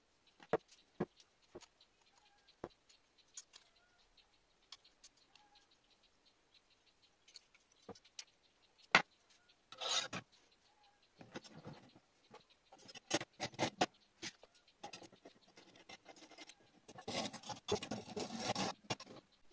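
Metal parts of a knife-filing jig being handled and fitted together: scattered sharp clicks and taps, then bursts of scraping and rattling as the long steel guide rod is slid and adjusted against the aluminium bar and clamp.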